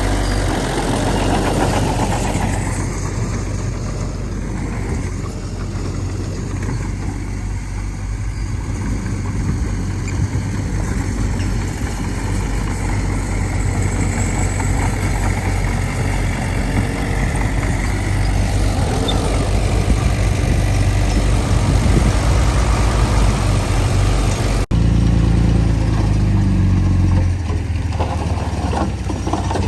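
Heavy diesel engine of earthmoving machinery running steadily. It changes abruptly about 25 s in to a deeper, more clearly pitched engine note.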